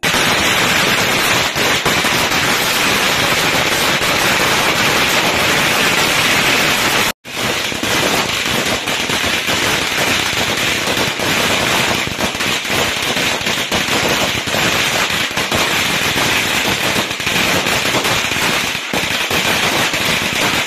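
A long string of red firecrackers going off in a rapid, continuous crackle of bangs, with a brief break about seven seconds in.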